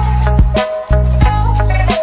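Background music: a mellow lo-fi beat with steady drum hits and a sustained bass line.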